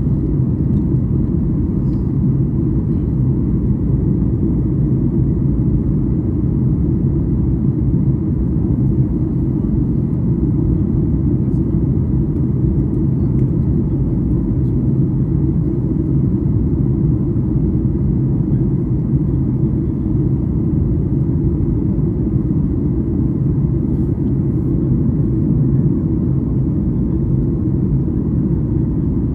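Steady low rumble of a jet airliner's engines and airflow heard inside the passenger cabin during the climb after takeoff, with a faint constant hum under it.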